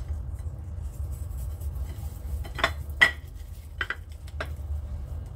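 Hands rubbing seasoning into raw pork spare ribs on a ceramic platter, with four short sharp clinks against the dish in the second half, the one a little after three seconds in the loudest. A steady low rumble lies underneath.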